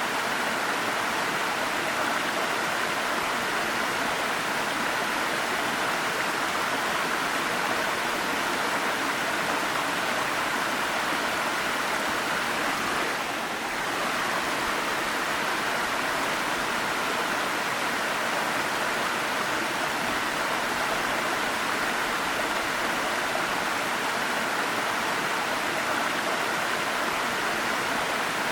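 Waterfall rushing with a steady, even roar of falling water, softening slightly for a moment about halfway through.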